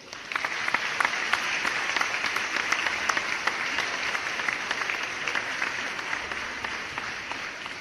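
Applause: many hands clapping in a dense, steady patter that starts abruptly and fades away over the last couple of seconds.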